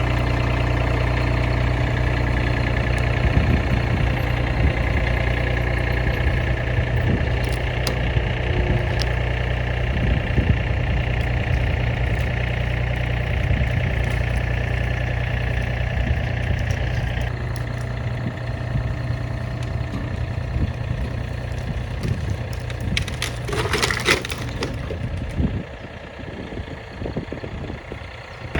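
A vehicle engine running steadily, with scattered crackles and knocks over it. Its sound shifts about 17 seconds in, and a short rush of noise comes near the 24-second mark.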